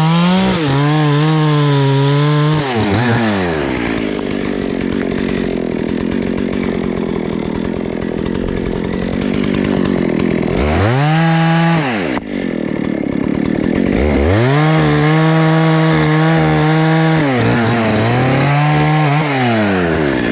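Husqvarna 288XP two-stroke chainsaw bucking logs into firewood. The engine screams at full throttle, then drops in pitch and labours as the chain bites into the wood, and revs back up between cuts. It dips briefly toward idle about twelve seconds in, then cuts again.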